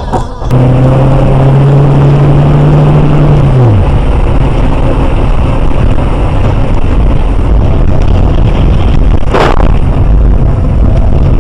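Car engine and road noise heard from inside the car through a dashcam microphone, loud and steady. A low engine hum holds for about three seconds and then drops in pitch. About nine seconds in comes a short, sharp burst of noise.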